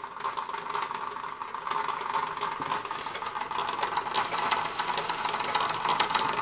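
Castle Products Model B toy horizontal steam engine from around 1955 running slowly under steam, a rapid rattling tick over a steady hiss. It runs slow, which the owner puts down to lack of steam pressure from a loose safety valve venting steam.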